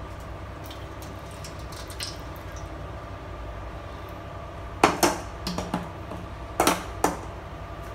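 Kitchenware clinking against an iron wok as cooking oil is poured in. A few faint ticks come first, then two clusters of sharp clinks about five and seven seconds in, over a steady faint hum.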